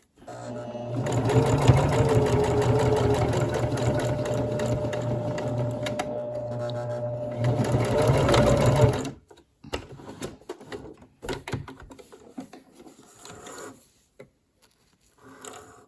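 Domestic sewing machine stitching a binding strip onto a quilt: it runs steadily for about nine seconds, then stops. Faint handling sounds of fabric follow.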